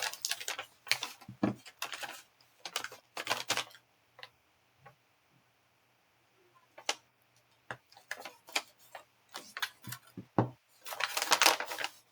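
Small hard objects clicking and tapping on a tabletop as items are handled, with a quiet pause midway and a denser burst of rustling near the end.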